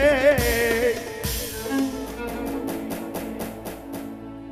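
A male voice sings the end of a mawwal phrase with heavy vibrato, stopping about a second in; live band music follows with a long-necked lute and sustained notes, and a quick, even run of strokes at about five a second before it fades near the end.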